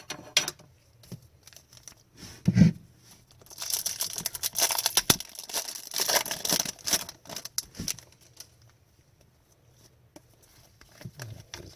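Hockey card pack wrapper being torn open and crinkled, with a few seconds of tearing and rustling in the middle. A short low thump comes just before it.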